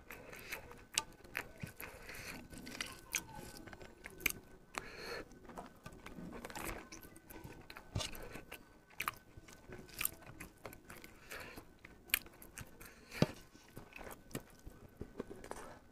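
Close-up eating sounds from a person eating rice and curry by hand: wet chewing and lip smacks with many irregular sharp clicks, along with fingers mixing rice on a plate.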